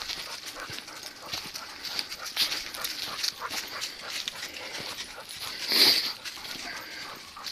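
Footsteps and dog paws crunching through dry fallen leaves on a woodland trail, with many small crackles. One short, louder sound comes about six seconds in.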